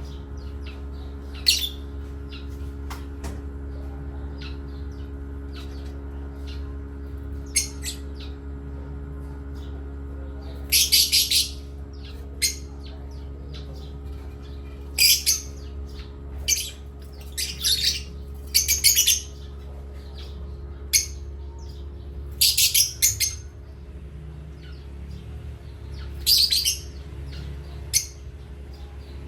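Pet parrots calling in short, sharp high chirps and squawks, about a dozen scattered through, some in quick clusters. A steady low hum runs underneath.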